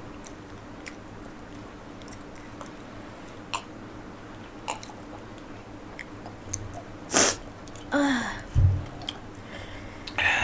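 Mouth sounds of people eating spicy instant noodles and fried chicken: quiet chewing with faint scattered clicks, then a few louder sharp mouth noises over the last three seconds, one with a short falling vocal sound.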